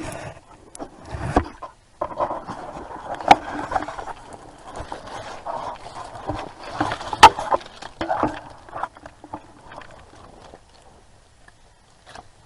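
Handling noise as a camcorder is swung around and repositioned: irregular rustling and scraping with a few sharp clicks, the loudest about three and seven seconds in, settling down near the end.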